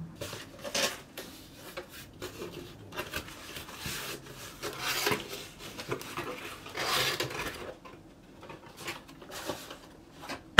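Cardboard record mailer being opened and handled: irregular scraping and rubbing of the cardboard flaps, and the shrink-wrapped vinyl LP sliding against the cardboard as it is pulled out. A single sharp knock right at the end.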